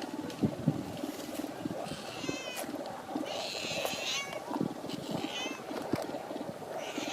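A stray cat crying out three times, short wavering calls with a longer, louder one in the middle.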